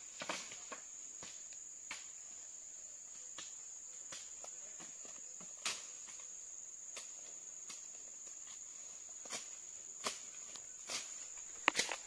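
Steady high-pitched insect drone from the forest, with irregular crackles of footsteps and twigs snapping in dry leaf litter as people push through undergrowth, a sharper cluster of cracks near the end.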